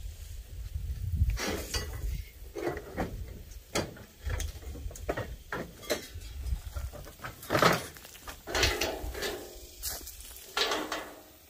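Rustling and footsteps in dry brush with scattered light metallic clinks from scrap metal, over a low rumble.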